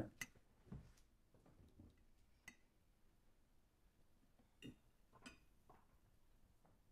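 Near silence, broken by a few faint, scattered clicks and soft knocks.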